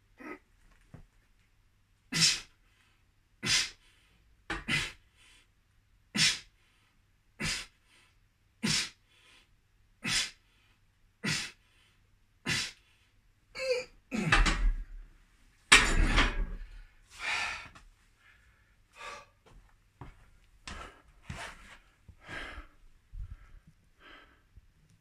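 A man's sharp, forceful exhalations, one with each barbell rep at about one every second and a quarter. About halfway through come louder, longer straining breaths, then quieter, uneven panting as he recovers.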